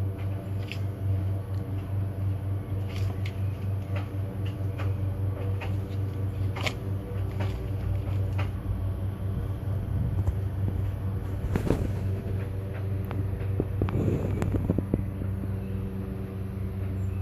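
A steady low mechanical hum throughout, with scattered short crackles and tearing clicks from a puppy ripping at a cardboard tissue box.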